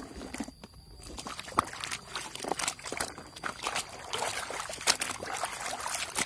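Muddy water sloshing and splashing in a plastic bucket as a hand scrubs a plastic toy car in it, with many irregular splashes and drips; it starts about a second in.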